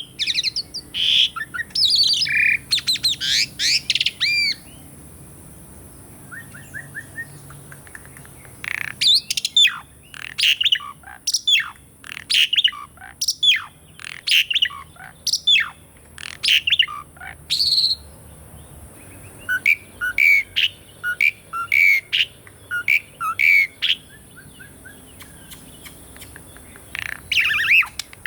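Asian pied starling (jalak suren) singing: phrases of loud whistled and squawky notes that sweep up and down in quick runs, with short pauses between bursts. A steady high hiss runs underneath.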